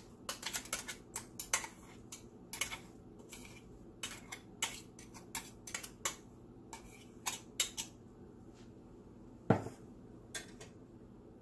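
Irregular clinks and light knocks of a stainless-steel mixer-grinder jar against a pan as ground coconut-spice paste is scraped out of it, with one heavier knock near the end.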